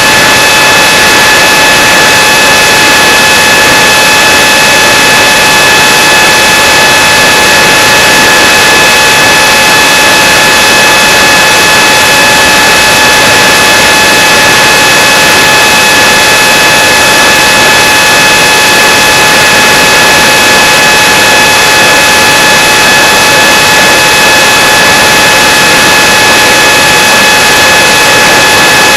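Cobra 2814 2100 kV brushless motor spinning an APC 6x5.5 propeller on a Hardcore 44 flying wing, heard from the onboard camera: a loud high whine held at one steady pitch at high throttle, over a steady rush of air noise.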